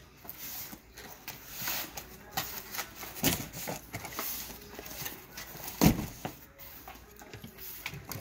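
Cardboard shipping boxes being handled and slid around: scattered knocks and scrapes of cardboard, the loudest thump about six seconds in.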